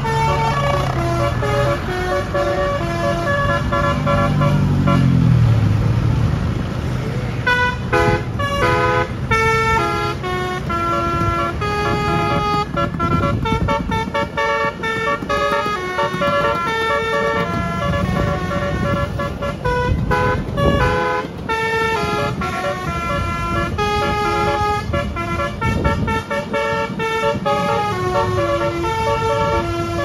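Tour bus's telolet multi-tone horn playing a quick tune of short stepped notes, busier from about eight seconds in, over the low running of engines.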